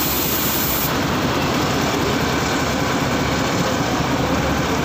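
Heavy diesel engine running steadily at idle: a constant low drone that does not change.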